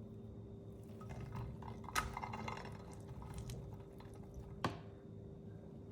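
Light kitchen handling sounds: rustling and two sharp clicks or knocks, about two seconds in and again near the end, over a steady low hum.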